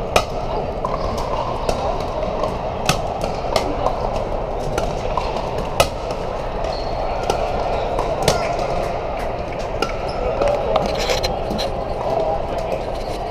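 Pickleball paddles striking plastic balls on several courts: sharp, irregular pocks every second or two over the steady chatter of a crowd of players and onlookers.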